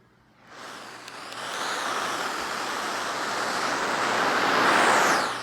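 Radio static: a loud hiss swells up about half a second in, grows steadily louder, and drops back just before the end.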